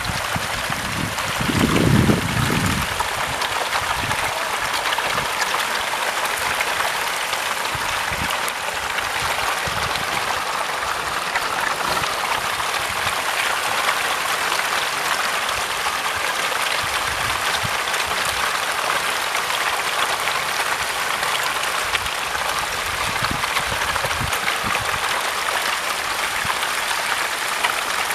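Hybrid magur catfish churning and splashing at the water's surface in a crowded feeding frenzy, a steady rain-like hiss of many small splashes. A brief low bump about two seconds in.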